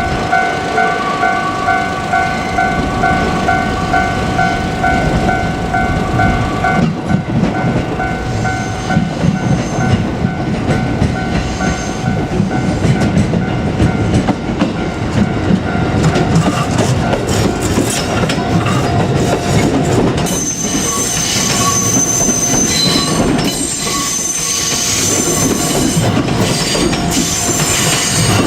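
JR Kyushu 787 series electric train running past with steady rumbling rail noise and wheel clatter. A steady ringing tone of several pitches stops about seven seconds in, and high-pitched wheel squeal starts about twenty seconds in.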